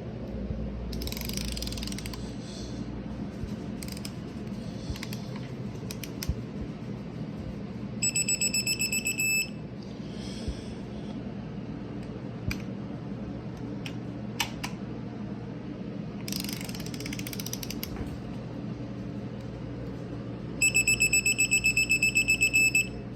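Digital torque wrench beeper sounding a fast pulsing high beep twice, about a second and a half and then two seconds long: the signal that target torque is reached on a cylinder head stud. Short bursts of rasping noise come between the beeps.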